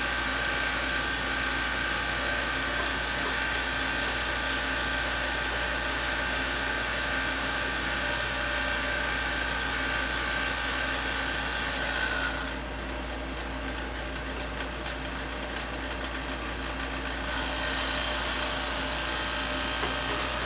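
Tesla coil buzzing steadily while it drives a glowing electric discharge through low-pressure krypton in a glass bottle. About 12 s in the high part of the buzz thins and changes, then comes back fuller near 18 s.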